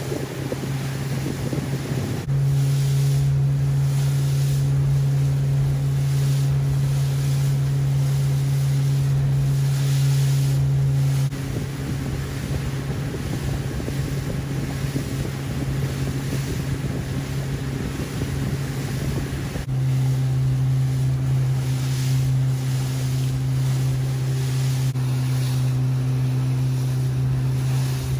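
Steady low drone of a boat's engine over wind buffeting the microphone and water splashing. The drone jumps louder about 2 seconds in, drops away about 11 seconds in, and comes back about 20 seconds in.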